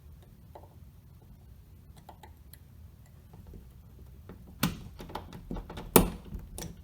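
Small metallic ticks and clicks, then a few sharper clacks about four and a half and six seconds in, as a thin metal rod is pressed into the release hole of a Schlage lever handle's shank and the lever is worked off its spindle.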